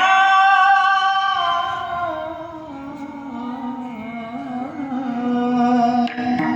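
A singer of a devotional song holds one long note that wavers in pitch after about two seconds, over a steady drone accompaniment.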